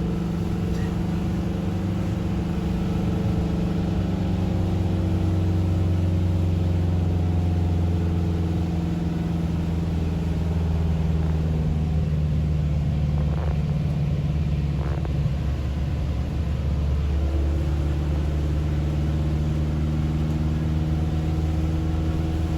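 Car engine and road noise heard from inside the cabin while driving, a steady low drone whose pitch shifts a couple of times as the speed changes.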